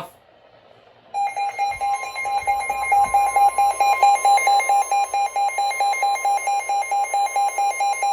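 NOAA Weather Radio warning alarm tone coming on about a second in: a loud, steady tone with a rapid beeping over it, about four beeps a second. It signals that a warning broadcast follows, here a marine warning.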